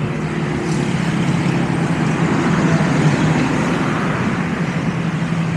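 Motor vehicle running steadily, a constant engine hum under road noise.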